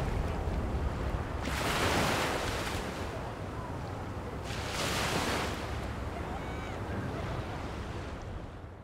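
Ocean surf washing onto a beach, with wind rumbling on the microphone; two waves swell up, about two and five seconds in, and the sound fades out near the end.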